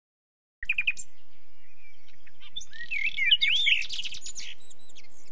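Songbirds singing, beginning about half a second in: quick chirps, then whistled notes that swoop up and down, busiest around the middle.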